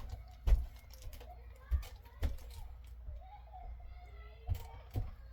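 Scattered sharp clicks and taps of enamel pins being handled and set down, about five in a few seconds.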